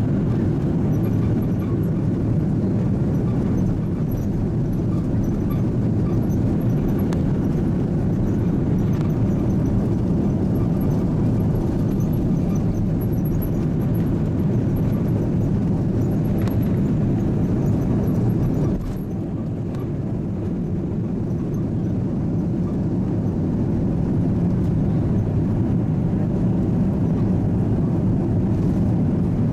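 Steady low rumble of an Airbus A330-300's engines and airflow heard inside the passenger cabin. The level drops slightly about two-thirds of the way through, then slowly builds back up.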